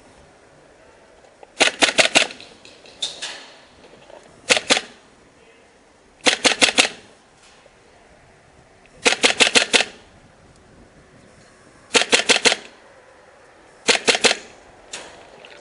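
Airsoft gun fired in quick strings of three to six sharp shots, about seven strings a second or two apart.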